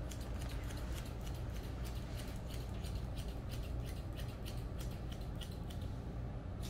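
Grooming scissors snipping repeatedly through a dog's fur: a quick, irregular run of crisp snips, several a second, over a steady low hum.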